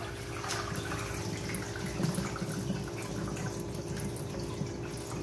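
Water bubbling and dripping in a bait bucket of live small fish that has an air line running into it, over a steady hum.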